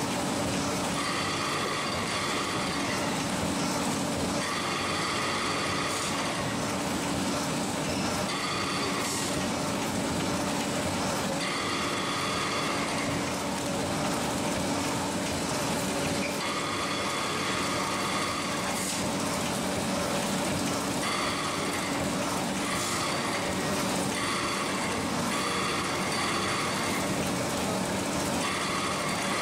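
HPR CM5000 VD auger-filling vertical form-fill-seal packaging machine running steadily, packing 100 g bags of Turkish coffee at 85 packs a minute. Under its constant mechanical hum, a higher whine comes and goes every few seconds.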